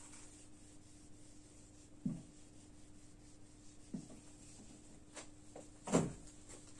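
Whiteboard eraser rubbing drawn lines off a whiteboard, faint, with a few brief louder sounds, the loudest about six seconds in.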